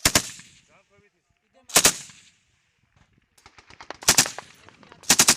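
PKM 7.62×54mmR general-purpose machine gun firing four short bursts of three or four rounds each, the bursts spaced about one to two seconds apart.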